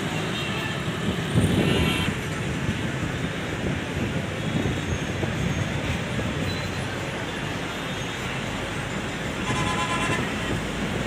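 Steady road traffic on a busy main road, with vehicles passing, one louder about a second and a half in, and a vehicle horn sounding near the end.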